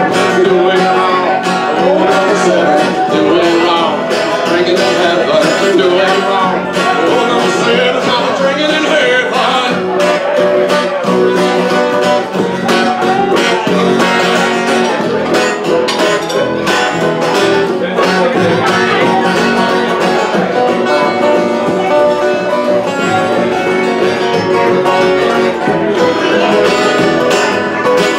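Live acoustic string band playing an upbeat bluegrass-style instrumental passage: strummed acoustic guitar, plucked upright bass, mandolin and banjo.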